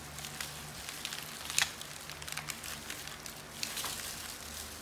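Plastic sheet and thin plastic gloves crinkling in scattered crackles and clicks as a sushi roll wrapped in the plastic is squeezed tight by hand, over a low steady hum.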